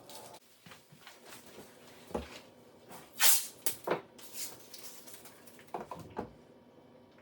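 A handful of short knocks and clatters, like cabinet doors or objects being handled on a counter, with a louder brief rasp a little past three seconds in.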